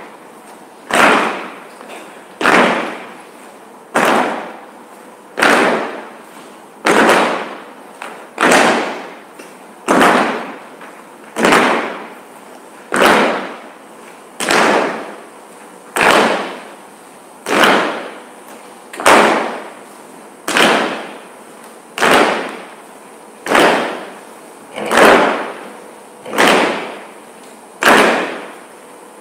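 A group of performers stamping in unison on a wooden stage floor. There is one heavy stamp about every second and a half at a steady pulse, and each one rings out in the hall.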